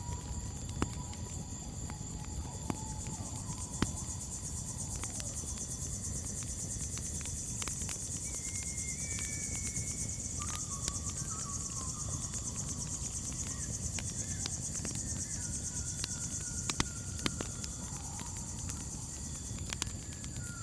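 Crickets chirring steadily and high-pitched, with a campfire crackling in scattered sharp pops over a low rumble. Faint thin whistled notes come and go.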